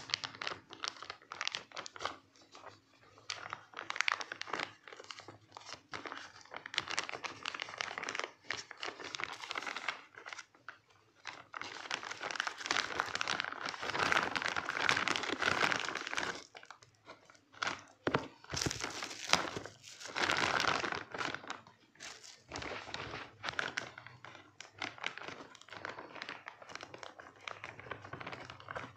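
Plastic courier mailer bag crinkling and rustling as it is handled and cut open with scissors, with irregular snips and tearing. The rustling grows louder in a couple of stretches around the middle.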